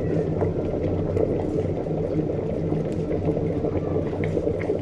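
Electric kettle with about 600 ml of water at a full boil, a steady bubbling rumble, shortly before its automatic cut-off.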